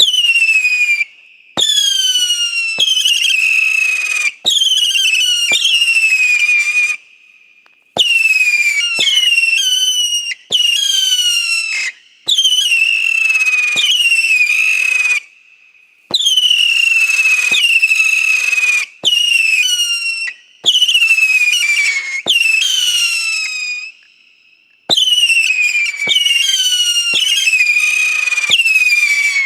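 A 25-shot, 1.2-inch firework cake firing whistling shots: each launch is a sharp pop followed by a loud whistle that slides down in pitch for a second or two. Shots come about one a second, overlapping, with a few short pauses between volleys.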